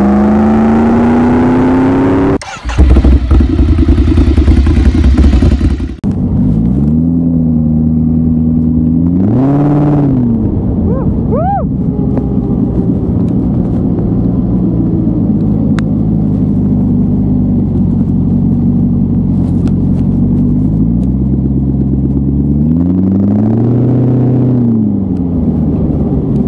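The 6.2-litre LS3 V8 engine of a Boss Hoss BHC-3 Supersport motorcycle, heard from the saddle while riding. Its pitch climbs under acceleration and cuts out for an instant, then comes a louder, rougher rush. After that it runs steadily at cruising speed, with two brief throttle swells that rise and fall, about ten seconds in and near the end.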